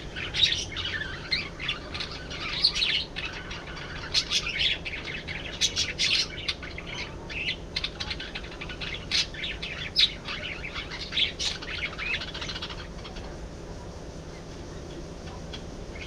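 Several budgerigars chattering and chirping in quick, overlapping calls that stop about three quarters of the way through, over a low steady hum.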